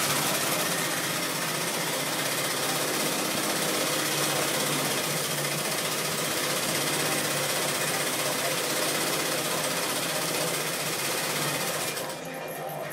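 Steady, loud machine clatter in the workshop, dropping off about twelve seconds in.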